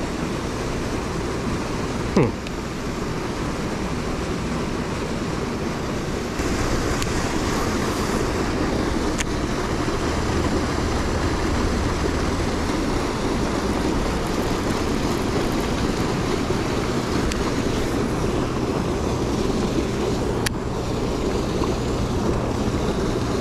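A boat motor runs with a steady low hum under wind and water noise, and gets louder about six seconds in. There is a single knock about two seconds in.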